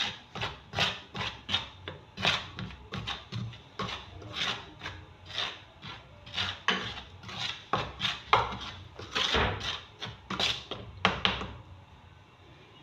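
Metal spoon stirring and scraping through flour against the bottom of a dish, in quick repeated strokes about two or three a second, as oil is worked into the flour for dough; the strokes stop near the end.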